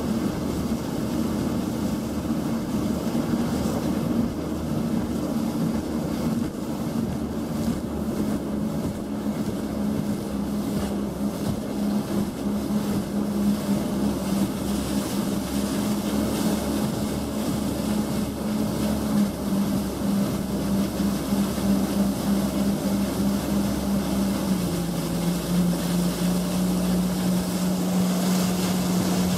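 Sea-Doo jet ski engine running at steady speed over a steady rush of wind and water. Its even engine tone settles lower in pitch in small steps, the clearest drop about five seconds before the end.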